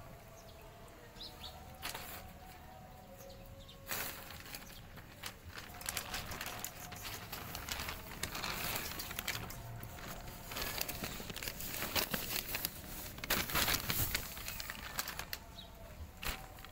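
A thin plastic sheet rustling and flapping as it is pushed and batted about, in irregular bursts that are busiest in the second half.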